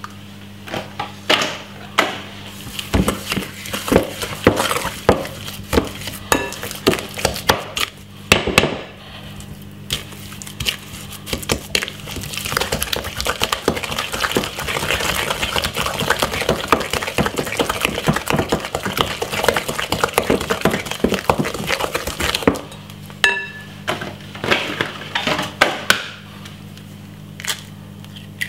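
Wooden spoon beating creamed butter and sugar in a glass mixing bowl as eggs are worked in: repeated knocks and clinks of the spoon against the glass. A long stretch of fast, continuous stirring runs through the middle.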